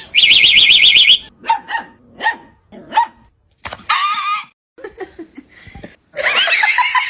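An electronic alarm warbles rapidly and loudly, then cuts off about a second in. A dog follows with a string of short barks and yips, and near the end a longer wavering call.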